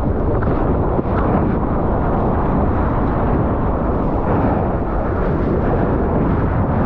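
Churning whitewater from broken surf rushing and washing close around a GoPro: a loud, steady, rumbling wash with no let-up.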